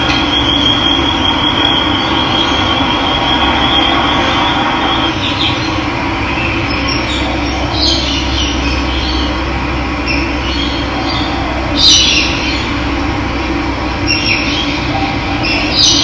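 Steady rush of running water, with a thin high whistle held for the first few seconds and short bird chirps over it, the loudest about three-quarters of the way through.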